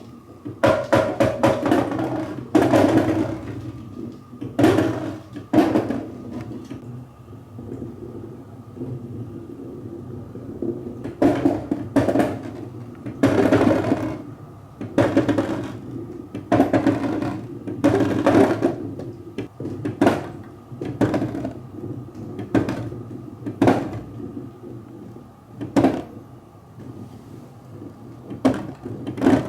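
Marbles rolling and clattering down a wooden marble run of HABA slopes and wooden rails, with a low rolling rumble and repeated sharp clacks as they drop and hit the track, coming in irregular clusters every second or two.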